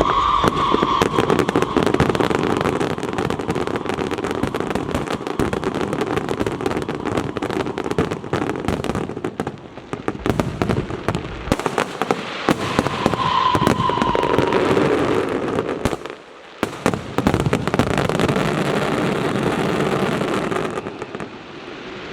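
Fireworks and firecrackers going off in a dense, rapid, continuous crackle of bangs, with a brief lull about sixteen seconds in.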